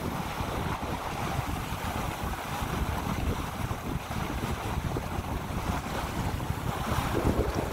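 Water rushing and splashing along the hull of a San Juan 23 sailboat heeled under sail, under steady wind buffeting on the microphone. The rush swells again about seven seconds in.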